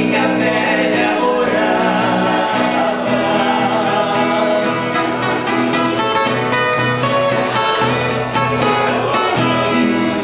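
Two acoustic guitars strummed and picked together in a Brazilian country (música caipira) tune, played live.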